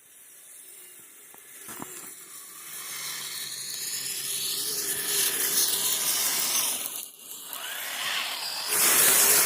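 Tracked RC crawler's electric motor and drivetrain whining as it drives through snow, its pitch rising and falling with the throttle. It gets steadily louder as it comes closer, with a brief drop about seven seconds in and a louder stretch near the end.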